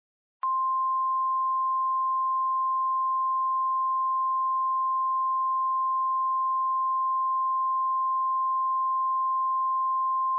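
Emergency alert tone of the 1050 Hz weather-radio type: a single steady sine tone that starts with a click about half a second in, holds at an even level for about ten seconds, then cuts off abruptly. It signals that an emergency warning message is about to be broadcast.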